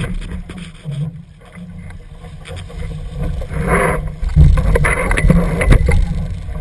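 Wind on the microphone, with water rushing and splashing against the hull of a Laser sailing dinghy moving through chop. It gets louder from about four seconds in.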